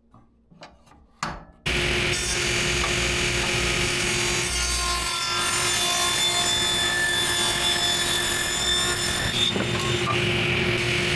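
A few light clicks and knocks, then about two seconds in a power saw starts abruptly and runs steadily, ripping a 2x6 board lengthwise down to 8 inches wide.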